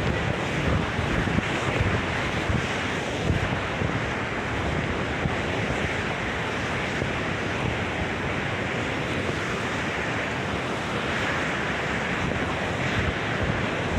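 Rough surf and strong hurricane wind, a dense steady rush with wind buffeting the microphone, gustier in the first few seconds.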